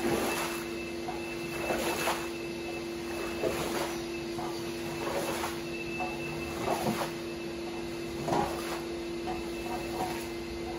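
Floor squeegee pushed across a soaked shag rug, sweeping sudsy water off it in repeated wet swishes every second or two, over the steady hum of a running motor.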